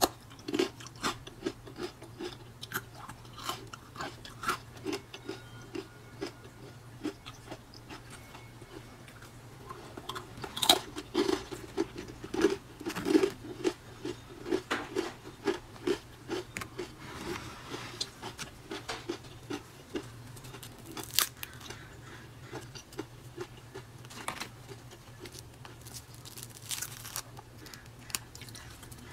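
Thin, baked-crisp whole-wheat oat and nut crackers being snapped and crumbled by hand: a long run of irregular crackling snaps, the sharpest a little after ten seconds in and again around twenty-one seconds.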